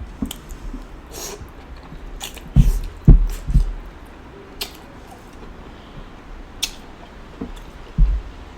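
Close-miked chewing and wet mouth sounds of someone eating a sauce-drenched seafood boil, with scattered smacks and sharp clicks. A few heavy low thumps come about two and a half to three and a half seconds in and again near the end.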